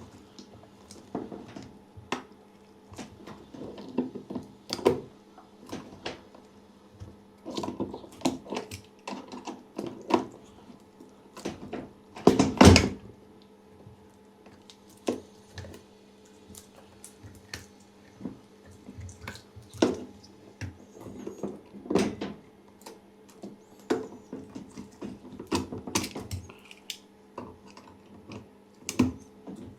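Irregular clicks, knocks and rattles of hands and tools working on a washing machine's parts during reassembly, with one louder knock about twelve seconds in. A faint steady hum runs underneath.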